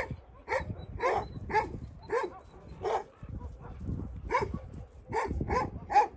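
A dog barking in short, repeated barks, mostly about two a second, with a pause about halfway through.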